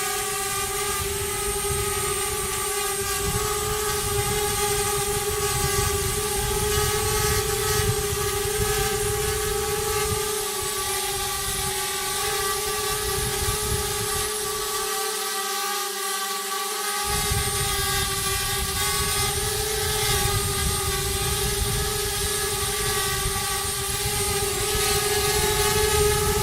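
Multirotor drone hovering, its propellers giving a steady buzzing whine with only small shifts in pitch.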